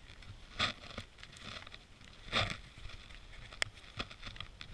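Footsteps sinking into deep powder snow: two louder steps a couple of seconds apart over a low scuffing, and a single sharp click near the end.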